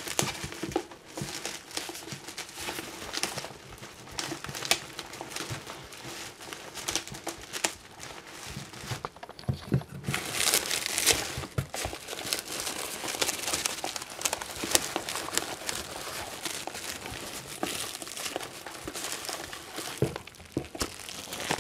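Bubble wrap and cardboard packing crinkling and rustling as hands rummage through a shipping box, in irregular crackles, louder for a couple of seconds about halfway through.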